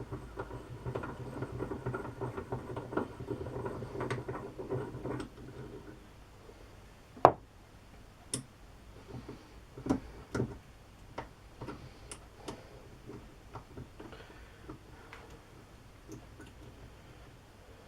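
Metal breast-drill mechanism handled on the bench: a steady whirr with small ticks for about six seconds, then scattered metal clicks and knocks, one sharp knock about seven seconds in, as the chuck is worked apart to get the jaws out.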